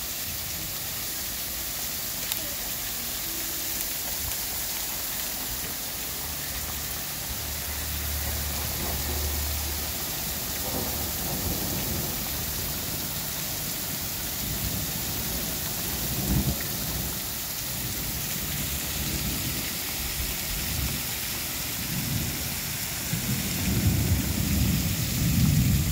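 Heavy rain falling steadily, with low rumbles of thunder that grow loudest in the last few seconds.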